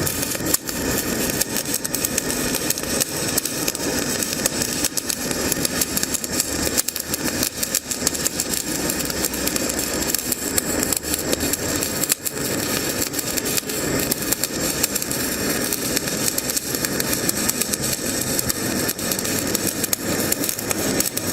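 CO2 (MIG/MAG) welding arc running continuously, a steady dense crackle from the wire short-circuiting into the weld pool.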